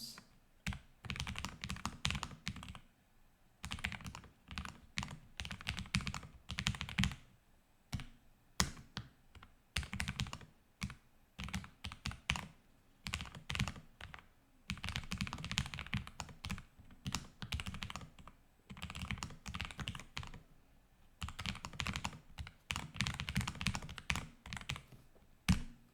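Typing on a Lofree Edge low-profile mechanical keyboard with Kailh switches: quick runs of key clicks broken by short pauses.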